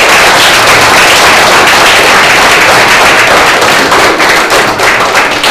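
Audience of parents applauding: many hands clapping in a dense, steady patter that loosens into more separate claps near the end.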